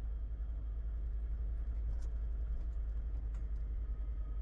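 Car cabin noise while driving: a steady low rumble of engine and road.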